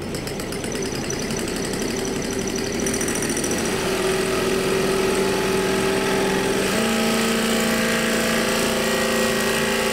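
Electric drill motor on a robot, run at a small fraction of its full power, boring its bit into a limestone block. It makes a steady grinding hum that grows a little louder over the first few seconds and steps up slightly in pitch about seven seconds in.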